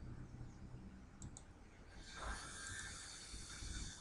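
Faint computer mouse clicks, a quick pair about a second in, as spline points are placed. A soft hiss follows from about halfway through.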